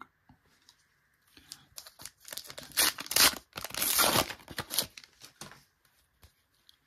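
A Panini Top Class trading-card pack wrapper being torn open and crinkled: a run of tearing and rustling that starts about a second and a half in, is loudest in the middle, and dies away a little after five seconds.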